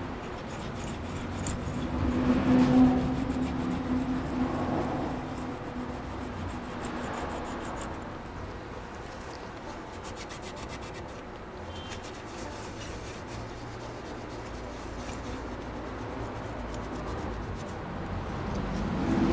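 A cloth rubbing back and forth over the top of an Intel 486 DX4 CPU, wiping off old thermal paste, in uneven strokes.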